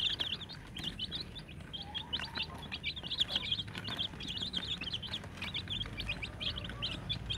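A brood of young chicks peeping constantly, many short high chirps overlapping one another.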